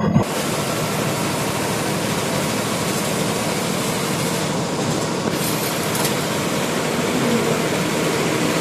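Luxury bus running at highway speed, a steady rush of engine, tyre and wind noise heard from inside the driver's cabin, with a short thump at the very start.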